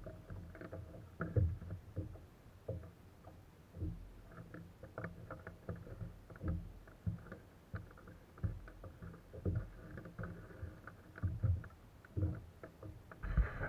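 Irregular knocks and clicks from fishing tackle being handled against the hard plastic hull of a Hobie Outback kayak, with a louder, busier clatter near the end.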